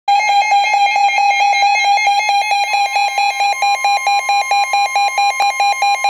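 Weather alert radios sounding their warning alarm: a loud, rapid run of evenly spaced high beeps, with a second steady tone joining about three seconds in. The alarm signals a severe thunderstorm warning.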